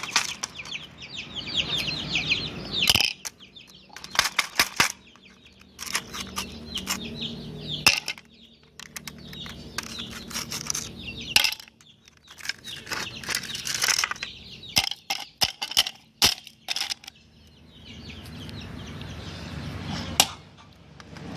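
Domestic fowl clucking and calling, with many scattered sharp clicks and taps.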